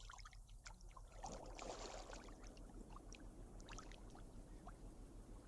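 Faint water sounds: scattered drips and small splashes, swelling slightly about a second and a half in.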